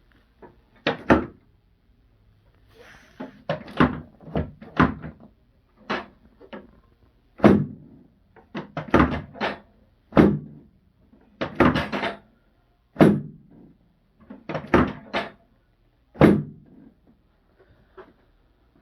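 Chiropractic drop table: its hinged pelvic section snapping down again and again under the chiropractor's thrusts, a long series of sharp clacks, some in quick pairs, with short pauses between. A drop-table adjustment of the hips for a short right leg.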